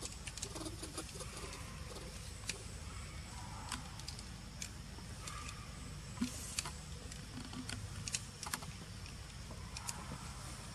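Outdoor ambience: scattered light clicks and crackles, irregular and about one a second, over a steady low rumble.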